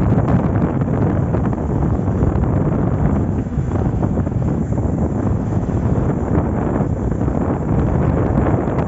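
Loud, steady wind buffeting the microphone of a camera carried along a road in a moving vehicle, with low rumbling road and vehicle noise underneath.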